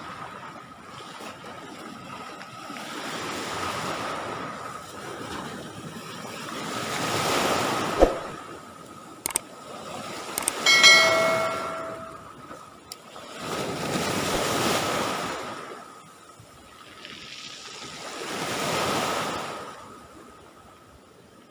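Sea waves washing onto the shore, the surf swelling and fading every four or five seconds. A sharp knock about eight seconds in is the loudest moment, and a brief high pitched sound follows a few seconds later.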